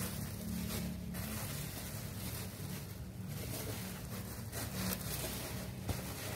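Plastic stretch wrap crinkling and rustling as it is pulled and peeled off a new car tyre.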